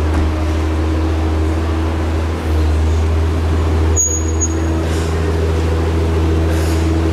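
Aston Martin V12 Speedster's twin-turbo V12 idling steadily, with no revving.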